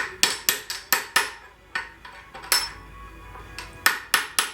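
Small hammer striking a steel bearing inner race on a mower deck spindle shaft held in a vice, sharp metal-on-metal taps in quick runs of about four a second, with a pause in the middle. The race is being driven off the shaft.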